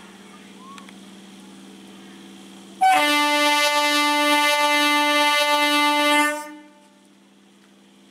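Electric multiple unit (EMU) local train's horn sounding one long, loud, single-note blast about three seconds in, lasting about three and a half seconds before fading, over a steady low hum.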